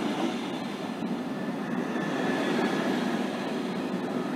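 Belgian SNCB double-deck passenger coaches rolling past at close range: a steady rolling noise of wheels on rail.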